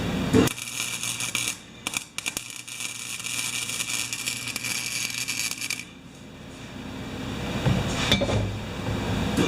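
Electric arc welding on the steel frame of a mower grass bag: a crackling hiss from the arc that begins after a sharp knock, thins out about six seconds in and builds up again.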